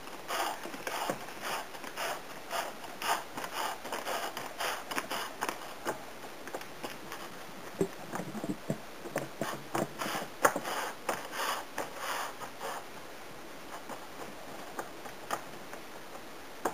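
Hands pressing and patting pizza dough flat in a buttered pan: a run of soft, irregular pats and scrapes that thins out to a few light taps after about twelve seconds.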